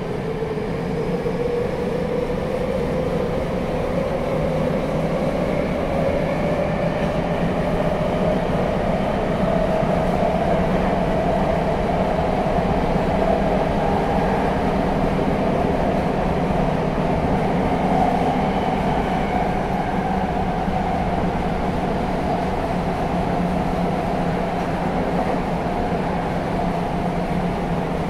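Tokyo Metro 7000 series subway train running, heard from inside the car: a whine rising in pitch over the first ten seconds or so as the train picks up speed, then holding steady, over the continuous rumble of the running gear.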